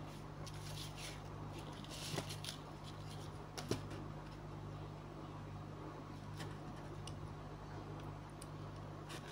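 Faint handling noises of small tools and electronic parts on a workbench: light rustling with a few soft taps and clicks, over a steady low hum.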